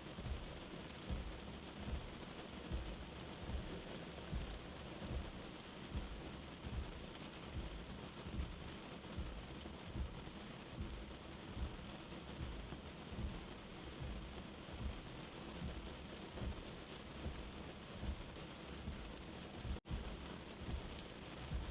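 Steady rain falling, an even hiss of drops with soft low thuds about once a second underneath. The sound cuts out for an instant near the end.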